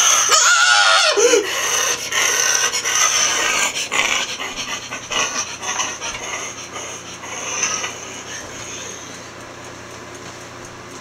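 A man's voice making wordless puppet noises: a loud sliding cry near the start, then breathy, hissing, panting sounds that die away about eight seconds in.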